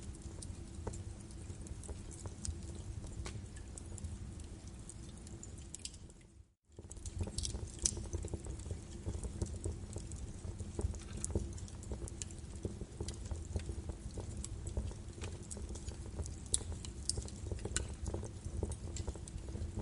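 Birch wood fire crackling and popping in a fireplace, irregular sharp snaps over a steady low rumble of the flames. The sound fades out briefly about six and a half seconds in, then comes back.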